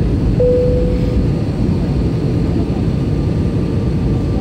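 Airbus A321 cabin noise during descent: the steady, loud drone of the jet engines and rushing airflow heard from inside the cabin. A short steady tone sounds for under a second about half a second in.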